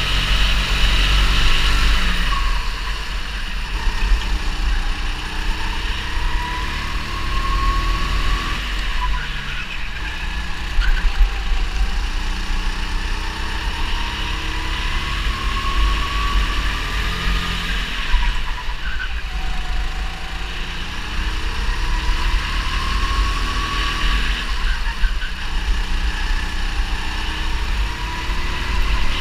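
Onboard sound of a 270 cc go-kart engine driven flat out around a track: the engine note climbs steadily in pitch along each straight and drops back for the corners, about four times over, above a heavy low rumble.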